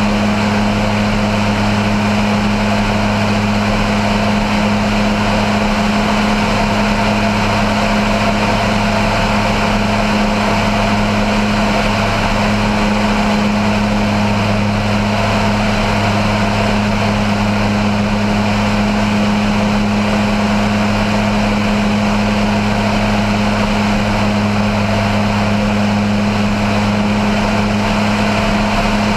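Aerotrek A220 light aircraft in cruise flight: its engine and propeller make an unbroken low drone with a steady rush of air over it, with no change in power.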